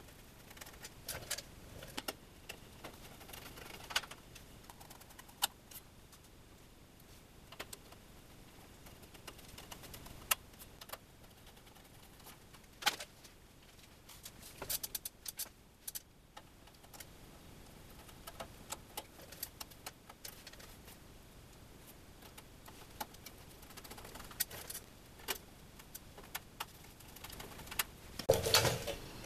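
Scattered small metallic clicks and ticks of a hand screwdriver and screws working on a sheet-metal panel box cover, fastening the cover down, with a louder clatter of metal near the end.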